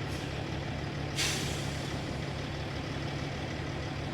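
Heavy diesel semi-truck engine idling with a steady low throb. About a second in, a short hiss of air from the truck's air brakes.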